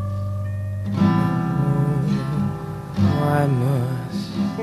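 Song with acoustic guitar: a held note fades out, then new plucked and strummed guitar notes come in about a second in, with a wavering melody line over them.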